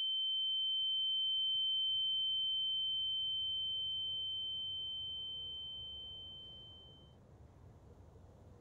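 A single pure, high-pitched ringing tone, the film sound effect for ringing ears, holding steady, then fading away about seven seconds in. After it, only a faint low background rumble remains.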